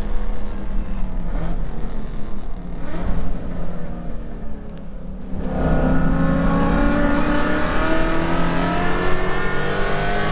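Holden VK Commodore's 308 V8 heard from inside the car, running hard on the track. About four seconds in it lifts off and goes quieter for a second or so, then comes back on the throttle, its note climbing steadily as it accelerates.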